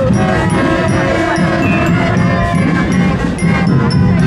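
Marching band playing loudly.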